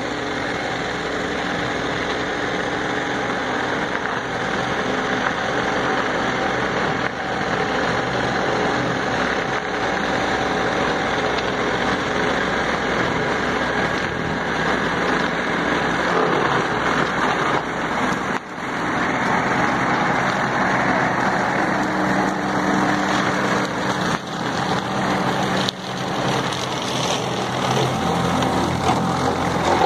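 New Holland 7630 tractor's diesel engine running steadily while powering a Lavrale articulated side-arm mower that cuts roadside brush and grass. It grows louder as the tractor comes closer, with a few brief dips in level.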